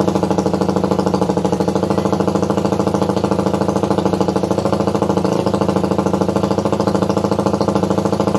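Engine idling steadily, its exhaust giving an even, rapid pulsing note for a sound check.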